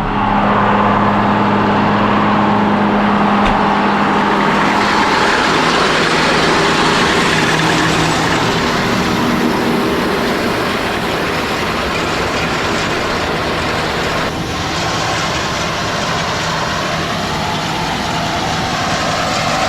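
Farm tractor running steadily under way in the hay field, a continuous loud engine hum with a broad mechanical rush. The engine's steady tone is strongest for the first four or five seconds and then sinks into the rush.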